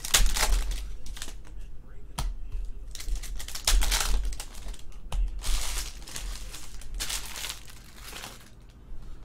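Foil wrapper of a trading-card pack crinkling and tearing as it is ripped open by hand, in four bursts of about a second each, with a single sharp click about two seconds in.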